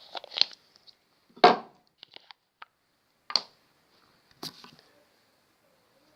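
Handling noises: a few separate short crackles and knocks, the loudest about a second and a half in, with quiet gaps between.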